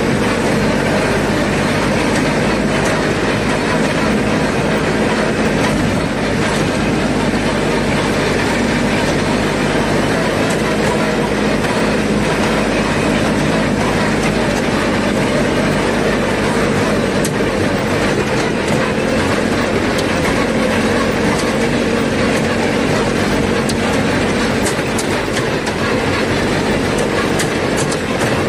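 Tractor-driven orchard powder duster (blower type) running steadily, blasting powder out. A continuous rush of air with an even hum underneath, the tractor's engine running along with it.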